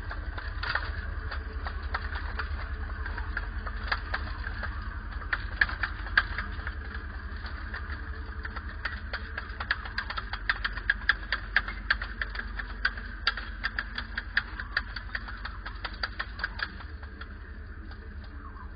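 Radio-controlled scale-model Bergepanther tank on the move: a steady motor and gearbox whine over a low rumble, with a quick run of sharp clicks and rattles from its tracks on the gritty path. The clicks stop and the sound fades near the end as it drives away.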